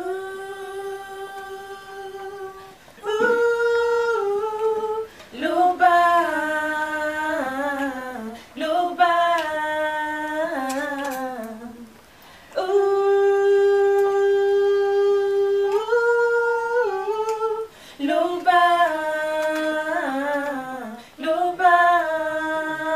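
A woman sings a slow worship song a cappella. Her phrases are made of held notes that slide downward at their ends, with one long held note about halfway through.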